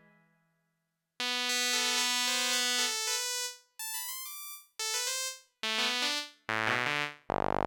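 Fred's Lab Manatee synthesizer playing a preset: after about a second of silence, a series of bright, buzzy synth notes and chords in short phrases with brief gaps between them, stepping in pitch. A louder, fuller patch comes in near the end.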